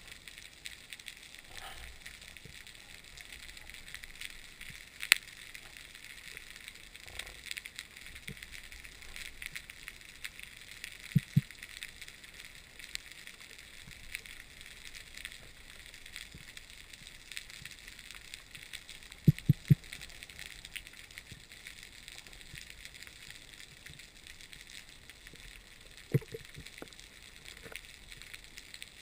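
Underwater reef ambience heard through a GoPro's housing: a faint steady crackle and hiss with scattered clicks. A few sharper knocks stand out: two close together about a third of the way in, and three in quick succession about two-thirds of the way in.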